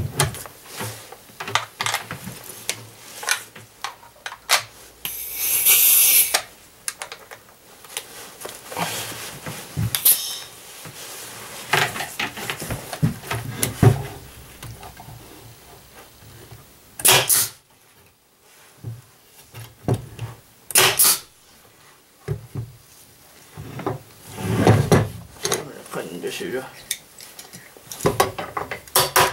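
Tools and clamps being handled on a work table: irregular clattering, clicks and knocks, with a short hiss about five seconds in and a few sharper knocks later on.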